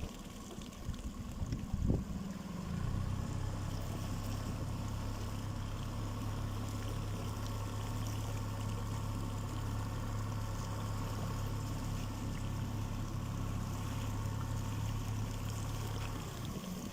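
Small motor boat's engine running steadily at low cruising speed, its note changing about three seconds in, with wind and water noise and a single knock about two seconds in.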